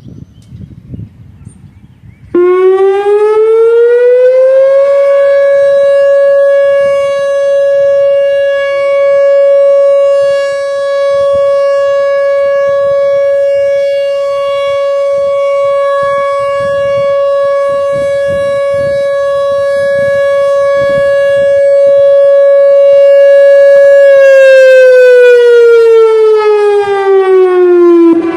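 Whelen WPS-4004 electronic outdoor warning siren sounding its steady Alert signal. It comes on suddenly about two seconds in and rises in pitch for a couple of seconds, then holds one loud, steady tone for about twenty seconds. Near the end it falls in pitch and cuts off.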